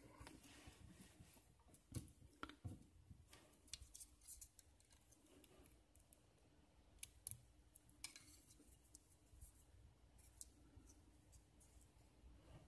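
Faint, scattered small clicks and taps of plastic and tiny screws being handled as a toy hexacopter's motor housing is fitted together.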